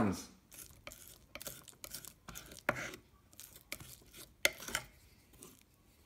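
Light kitchen handling sounds: a string of irregular soft clicks, taps and scrapes of utensils and containers on the worktop, the most noticeable knocks about a third of the way in and past the middle.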